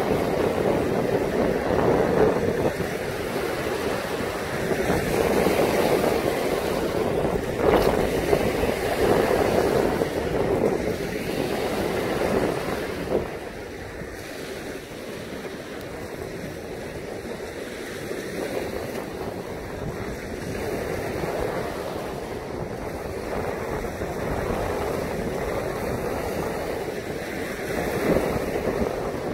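Lake Michigan waves breaking and washing up a pebbly shore, with wind rumbling on the microphone. Louder in the first half, easing off a little under halfway through.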